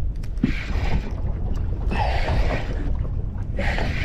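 Wind buffeting the microphone on a small boat, a steady low rumble with a hiss that swells and fades about every one and a half to two seconds.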